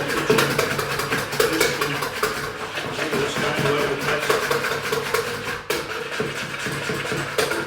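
Wet muffin batter of eggs, melted butter and yoghurt being whisked in a bowl: a busy run of quick clinks and scrapes of the whisk against the bowl.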